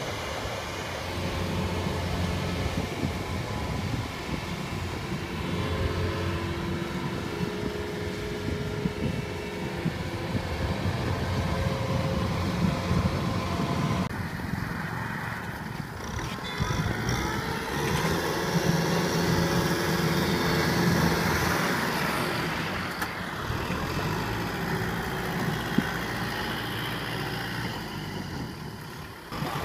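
Diesel machinery engines running steadily under load. First a Kubota tracked combine harvester works through a flooded rice paddy, then, after a change about halfway, a Kubota M6040SU tractor pushes dirt with its front blade.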